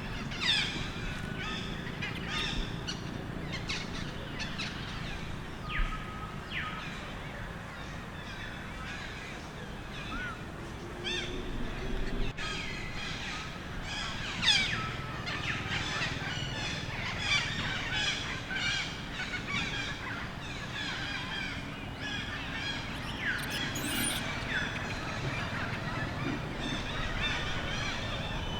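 Many short, high-pitched animal chirps and squeals, some sliding down in pitch, overlapping and busiest in the middle stretch, over a steady low background hum.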